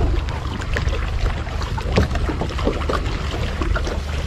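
Small waves lapping and slapping against a fishing boat's hull, with many short irregular splashes over a steady low rumble.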